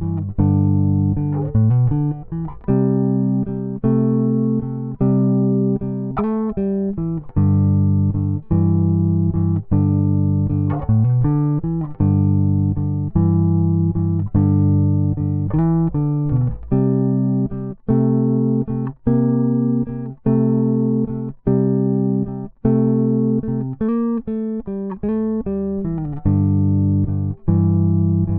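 Electric bass guitar playing an unaccompanied blues riff of plucked two-note chords and single notes in a steady rhythm, moving between G, C and D positions.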